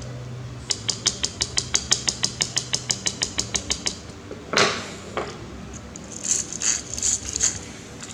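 Small parts of a toy car being handled: a rapid, even run of clicks, about eight a second for about three seconds, then a louder scrape and a few short rattles.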